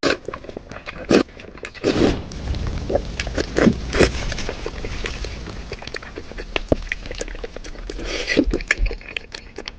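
Close-up eating sounds: a person chewing and biting into grilled meat, with many irregular wet clicks and lip smacks and a few short voiced hums.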